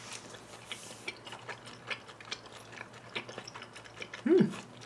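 Close-miked chewing of raw yellowtail sashimi: soft, wet mouth clicks at an irregular pace, several a second. Near the end comes a brief hummed 'mm'.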